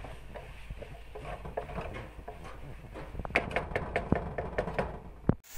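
Wooden spatula scraping and tapping against a nonstick wok while diced chicken is stir-fried, with a quick run of sharp knocks starting about three seconds in. The sound cuts off abruptly just before the end.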